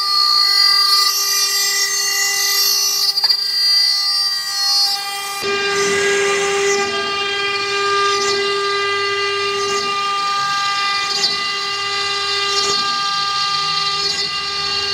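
CNC router spindle whining at a steady pitch as its bit engraves the workpiece. About five seconds in the sound changes to a rougher cutting noise, with more rumble under the whine.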